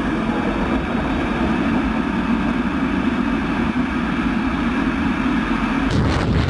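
Steady cockpit noise inside an F-16 fighter in flight: engine and rushing air, heaviest in a low hum. The sound changes abruptly near the end.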